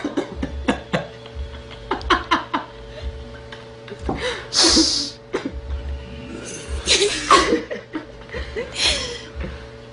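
People laughing and chuckling, with short clicks and a few breathy bursts of noise.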